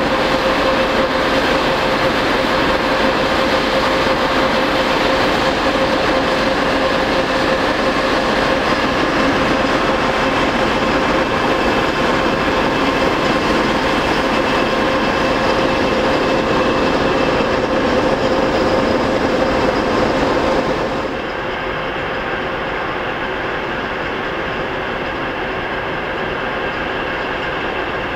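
Two-section 2TE25KM diesel locomotive running past at close range with its tank-car train: steady diesel engine and running-gear noise with a constant tone in it. About 21 seconds in the sound drops and turns duller, the locomotive now further off.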